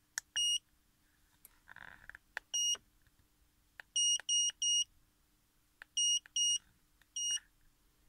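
Autel AutoLink AL319 OBD2 scanner's key beep sounding through its built-in speaker as its buttons are pressed to step through its menus. The buttons click, and each press is followed by a short, steady high-pitched beep. There are about eight beeps, including a quick run of three in the middle.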